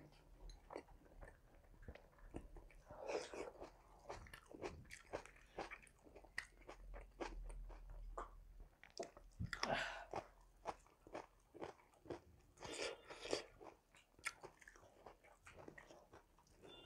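A person chewing mouthfuls of rice and salad close to the microphone, with many small wet mouth clicks and a few louder crunchy bites of raw vegetables.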